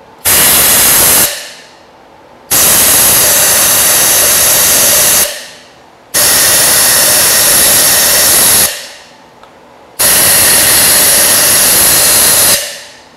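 Compressed air hissing from a handheld air-chuck blow gun in four blasts, a short one and then three longer ones, blown into the intake ports of a cylinder head to check whether the valve seats leak.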